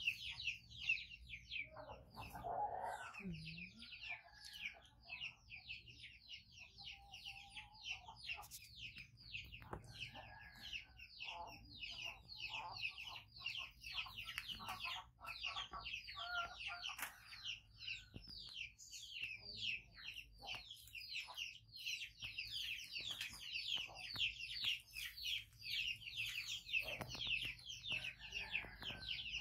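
Baby chicks peeping without pause: short, high, falling peeps, several a second.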